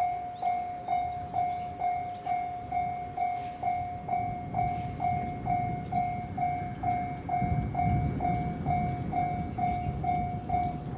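Japanese level crossing warning bell ringing in steady, evenly repeated dings, a little over two a second. A low rumble swells briefly about eight seconds in.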